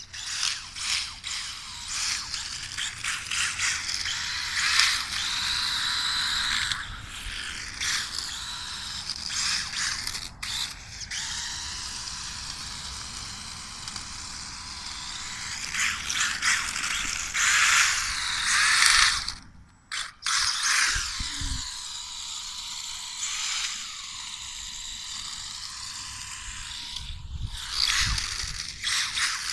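RC drift car's electric motor and gears whining, rising and falling in pitch with repeated bursts of throttle, with the tyres scrubbing on rough asphalt. The sound dies away briefly about two-thirds of the way through.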